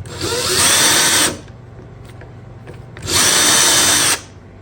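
Power drill run in two bursts of about a second each, spinning up at the start of the first, to start a pilot hole in the wall for a wall anchor.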